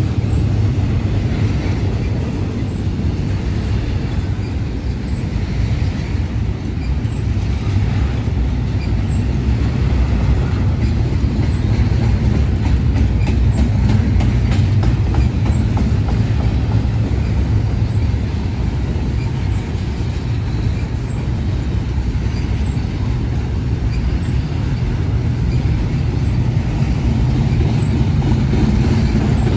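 Union Pacific intermodal freight cars rolling past at speed: a steady, loud rumble of steel wheels on rail, with faint clicking as the wheels pass over rail joints.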